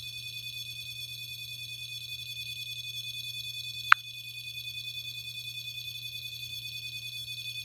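REM-Pod ghost-hunting detector sounding its alarm: a steady high electronic tone pulsing rapidly, the signal that something has disturbed the field around its antenna, which the owner takes for a spirit standing at it. A single sharp click about four seconds in.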